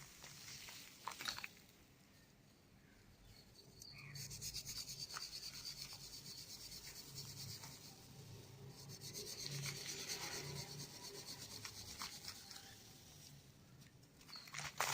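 Dry crumbled cement being rubbed and ground between the fingers: a fine gritty scraping in quick, rapid strokes, starting about four seconds in, with a brief pause partway and a louder crunch at the very end.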